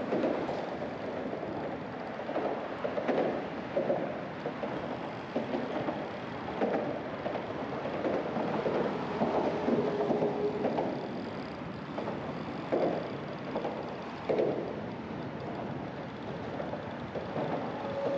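Wind buffeting the microphone outdoors, a rushing noise that rises and falls in uneven gusts.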